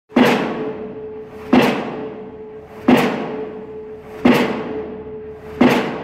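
Pile-driving hammer striking a steel pile in a crane-hung leader: five heavy blows about 1.4 seconds apart, each one ringing off before the next, with a steady tone humming underneath.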